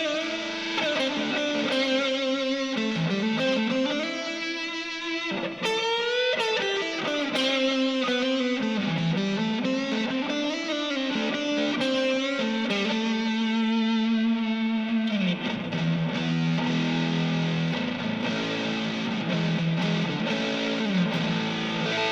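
Distorted electric guitar playing a single-note lead line, with sustained notes and several string bends, through a TC Electronic Flashback X4 delay pedal.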